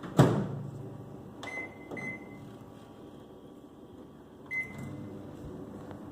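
Microwave oven door shut with a thud, then the keypad beeping twice as the time is set and once more about four and a half seconds in, after which the oven runs with a low steady hum.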